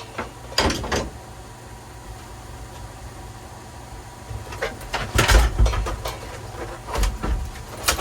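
Several knocks and clunks over a low steady hum, the loudest cluster about five seconds in.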